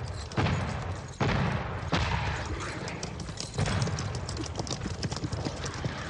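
Battle sound from a film soundtrack: a series of loud gunshots or booms, roughly a second apart at first, over a continuous rumbling din.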